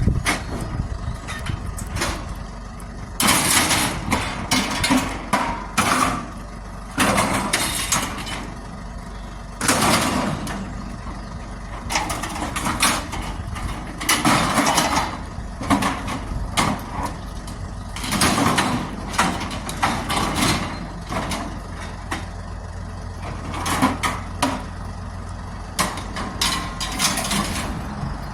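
Truck engine idling steadily, with repeated short bangs and scrapes, over a dozen, as scrap metal is handled and loaded.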